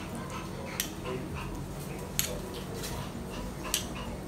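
Metal spoons scooping ginger-garlic paste and lightly tapping against a ceramic bowl and a stainless steel bowl: a few faint clinks about a second in, around two seconds and near the end, over a low steady hum.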